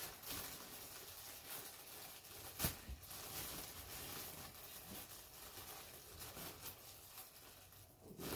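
Clear plastic packaging bag crinkling and rustling as hands pull a new backpack out of it, with one sharper crackle a little under three seconds in.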